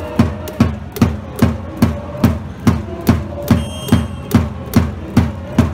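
A drum beaten in a steady cheering rhythm, about two and a half beats a second, each stroke a low thump with a sharp crack.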